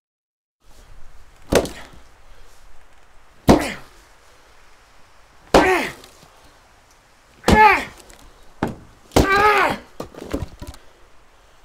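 Axe chopping wood on a chopping block: five heavy strikes about two seconds apart, beginning about a second and a half in. The later strikes are each followed by a short pitched sound, the last one longer, with a few lighter knocks in between.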